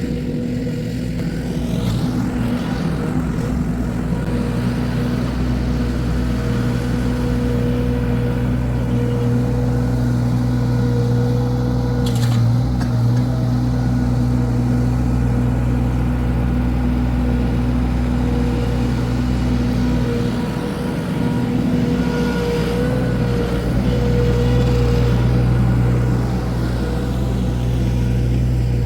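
Engine of a compact landscaping machine running steadily at high speed under light working load, with a brief change in note about halfway through and again a little after two-thirds of the way.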